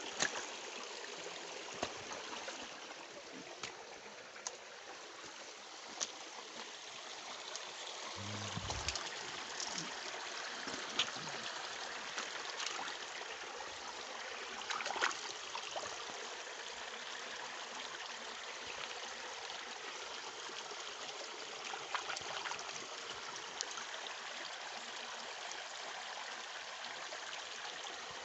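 Water of a rocky stream running steadily, with a few sharp clicks and a brief low thump about eight seconds in.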